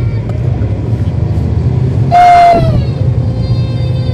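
Cummins ISL9 diesel engine of a NABI 40-SFW transit bus heard on board, running with a steady low rumble and a faint whine. About two seconds in comes the loudest sound, a loud half-second burst of hiss with a whistling tone, which then slides down in pitch and fades.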